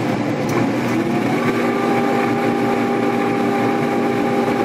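A.O. Smith Legend 2000 boiler firing at about high fire: the gas burner and its induced-draft blower running steadily. A steady hum of several tones sets in just over a second in.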